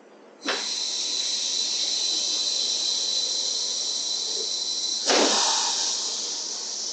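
Compressed air hissing out steadily with a thin high whistle, starting suddenly, with a brief louder rush of air about five seconds in.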